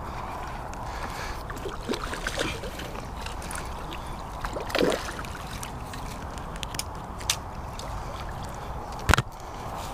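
Water sloshing and splashing as a hooked pike thrashes at the surface close to the bank, over a steady low rumble. There is a louder splash about five seconds in and a sharp knock near the end.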